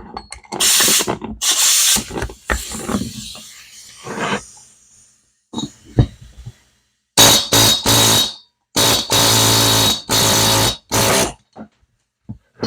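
Workshop metalwork on a motorcycle cylinder head while a valve guide is being driven out: scraping and knocks, a sharp click, then a buzzing tool run in several short bursts, the longest about a second each.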